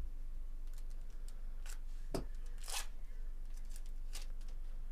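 Foil trading-card pack wrappers crinkling and rustling in short scattered bursts as the packs are opened and handled, with the loudest crinkles a little after two seconds.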